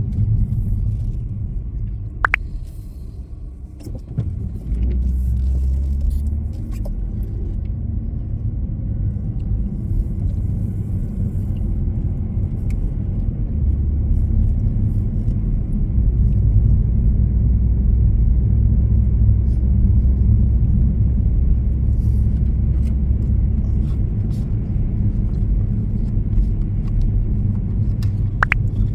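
Steady low road rumble of a moving car, as heard inside the cabin, with a short click about two seconds in and another near the end.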